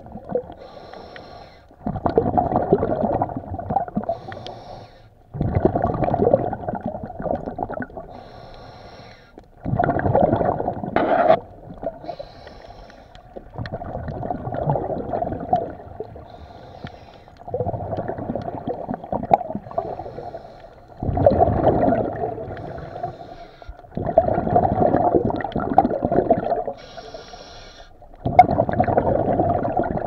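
Scuba diver breathing through a regulator underwater: bursts of exhaled bubbles about every three to four seconds, with fainter hissing inhales between them.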